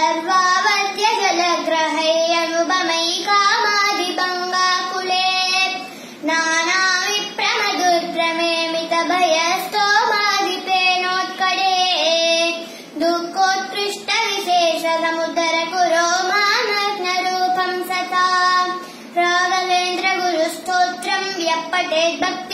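A young boy chanting a Sanskrit hymn in a sing-song melody, verse after verse, with short pauses for breath about every six or seven seconds.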